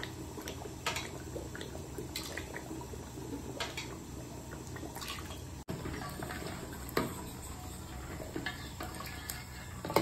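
Steel ladle stirring curd into a thick mutton curry in a large metal handi: wet sloshing of the gravy with short knocks and scrapes of the ladle against the pot every second or so, over a steady low hiss.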